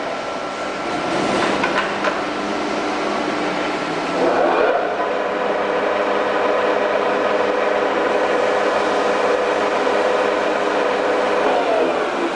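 FAT 630 straight-bed lathe running under power: a steady mechanical whir with several even gear-whine tones. Its sound shifts and grows slightly louder about four seconds in, then holds steady.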